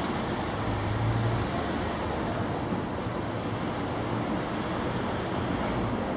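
Steady outdoor background noise: a constant hiss with a low hum and no distinct events.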